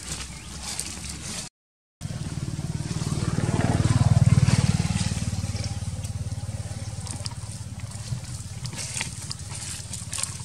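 A motor vehicle's engine running as it passes: a low, evenly pulsing rumble that swells to its loudest about four seconds in, then slowly fades. The sound cuts out for half a second near the start. Light crackles of dry leaves come and go.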